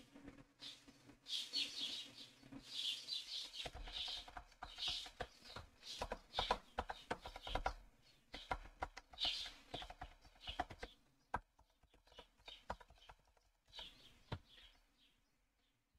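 Quiet computer keyboard typing: irregular runs of key clicks, thickest in the middle, while code is edited. Bursts of high chirping come in between, near the start, in the middle and near the end.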